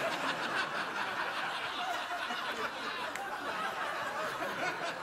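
Studio audience laughing: a steady wash of many voices laughing together, tailing off slightly near the end.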